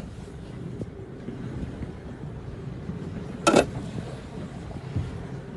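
Boat engine running under way, with a steady rumble of wind and water. One brief loud sound cuts through about three and a half seconds in.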